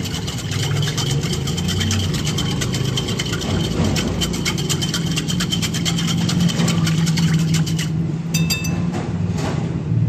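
Wire whisk beating a thin yeast, sugar and milk-powder liquid in a glass bowl: rapid clicking and scraping of the wires against the glass, which stops shortly before the end. A steady low hum runs underneath.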